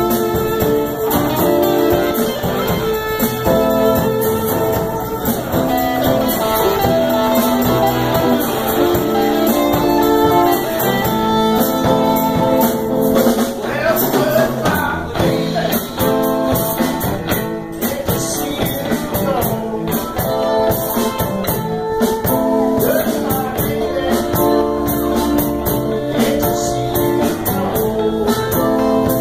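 Live blues band playing: electric guitars over drums and cymbals, loud and without a break.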